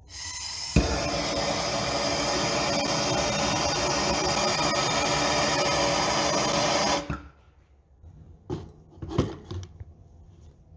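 Handheld gas torch flame running steadily, heating the neck of a glass test tube to seal it shut into an ampoule; a sharp pop about a second in, and the flame sound stops suddenly after about seven seconds. A few faint knocks follow near the end.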